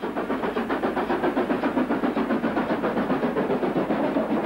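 Stanier Class 5 steam locomotive working hard up a steep gradient, its exhaust beating in a fast, even rhythm of about five beats a second as the train passes.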